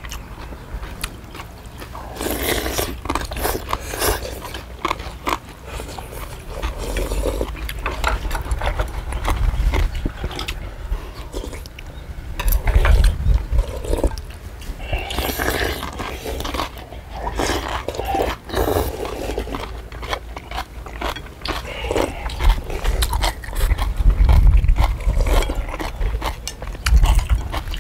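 People slurping and chewing spicy instant noodle soup in uneven bursts, with spoons and chopsticks clicking against bowls now and then, over a low rumble that swells at times.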